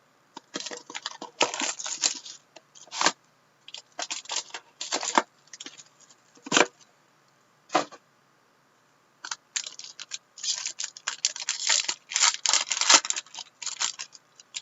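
Plastic packaging being torn and crinkled in bursts of sharp crackling, as a trading card box or its wrapping is opened. The crackling pauses for about a second and a half, then comes back denser near the end.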